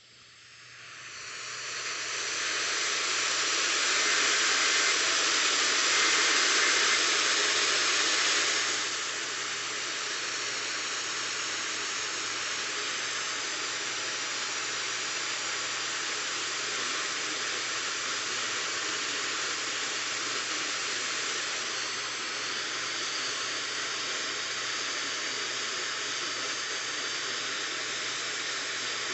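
FM radio static: a steady hiss that fades in over the first couple of seconds, is louder until about eight seconds in, then settles slightly quieter and stays even.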